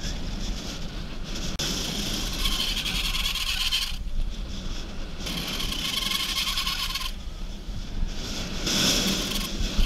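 Wind rushing over a helmet-mounted microphone and bicycle tyres rolling on asphalt as a BMX coasts fast down a paved mountain road. A higher whir cuts in and out several times.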